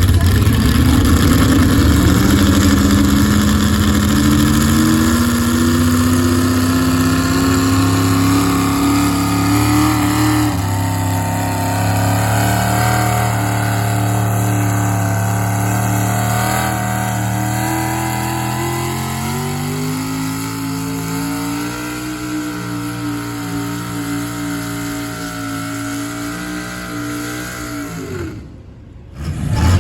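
A heavy diesel engine running hard under load, its pitch climbing slowly, dropping back about ten seconds in and climbing again later. The sound cuts off abruptly near the end.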